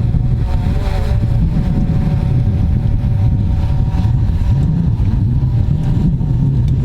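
Jet ski engine running at a steady speed on open water: a steady engine whine over a heavy low rumble, with wind on the microphone.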